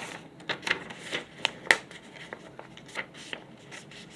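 Sheets of paper being handled and shuffled by hand, a run of irregular rustles and light clicks, with one sharper snap about a second and a half in.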